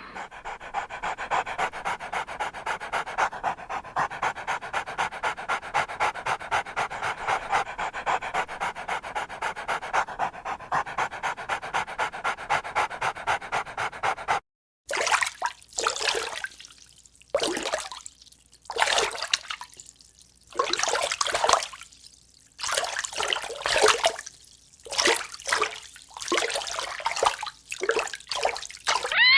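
Dog panting fast and evenly, about three breaths a second. After a short break about halfway through, it is followed by irregular breathy bursts with brief gaps.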